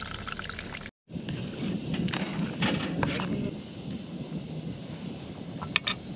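Water trickling from a jug's spigot into a steel pot of rice. After an abrupt cut, the pot of rice and sausage bubbles on a canister gas stove as a steady low noise, with a few light metal clinks near the end.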